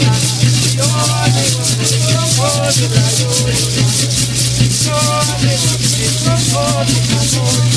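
Deer dance music: gourd rattles shaken in a fast, even rhythm, with voices singing short phrases over them and a steady low hum underneath.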